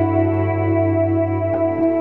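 Ambient background music with held, sustained chords that change right at the end.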